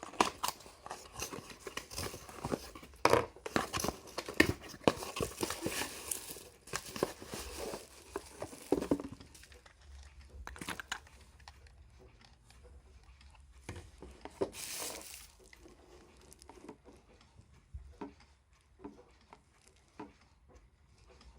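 Packaging being torn open and crinkled by hand, with many small handling clicks and knocks. It is busiest over the first nine seconds, then turns sparser, with another brief burst of rustling about fourteen seconds in.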